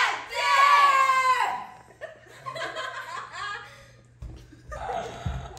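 A young woman's loud, high, drawn-out vocal for about a second and a half, then quieter laughter and chuckling from a small group.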